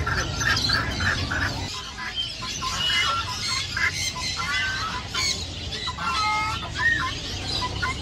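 A mix of caged market birds calling: a quick run of short clucking calls, about four or five a second, for the first couple of seconds, then scattered chirps and whistled calls sliding up and down.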